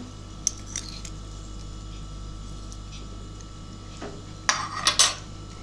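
Kitchenware being handled: a few faint clicks in the first second, then a brief metallic clatter of a stainless steel pot and utensils about four and a half seconds in, over a low steady hum.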